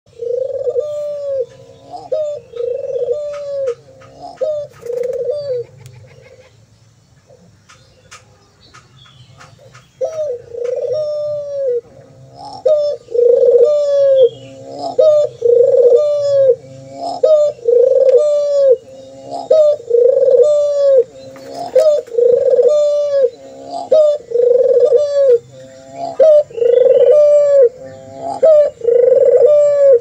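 Puter (Barbary dove) cooing over and over, one arched coo about every second, with a lull of a few seconds about six seconds in before it resumes louder. Thin, high chirps run over the coos.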